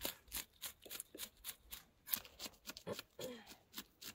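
A knife scraping the scales off a large pike on a wooden board, in quick, regular strokes about four a second.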